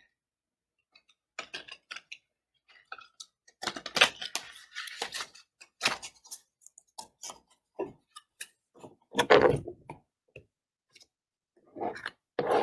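Tarot cards being shuffled by hand: irregular clicks and flicks of the cards, with louder rustling bursts about four, six and nine seconds in.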